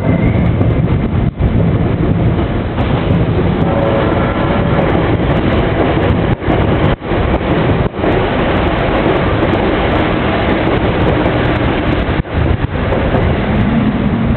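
A train passing a railway level crossing: a loud, steady rumble of its wheels on the rails, with a few brief dips in level.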